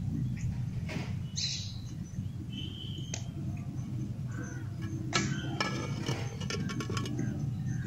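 A pot of peanuts in their shells boiling with a steady low rumble, and birds chirping a few times. About five seconds in, a metal lid clatters as it is put onto the pot, a quick run of clicks and rattles.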